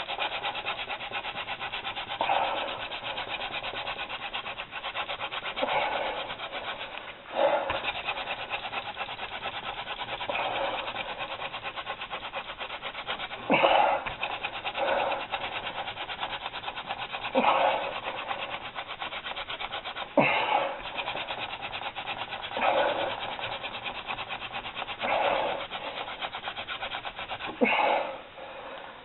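Wooden hand-drill spindle spun back and forth between the palms, grinding into the notch of a two-branch soft-wood baseboard. It makes a steady dry rubbing whir, with a louder swish every two to three seconds. This is friction-fire drilling building toward an ember.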